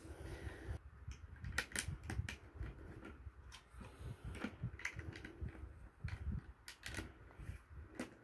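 Small Banbao plastic building bricks being handled and pressed onto a model: irregular light clicks and taps.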